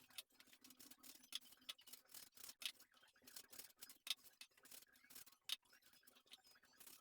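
Faint, irregular small clicks and crackles, several a second, over a low steady hum.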